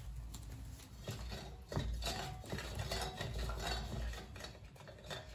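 Computer keyboard typing: irregular light clicks, mixed with small knocks of objects handled on a table, the loudest knock nearly two seconds in.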